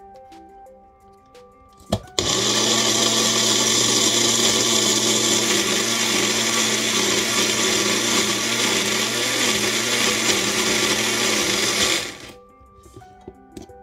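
Small bullet-style personal blender running, grinding fresh herbs, garlic and onion into a paste. A click about two seconds in, then the motor runs loud and steady for about ten seconds and cuts off near the end.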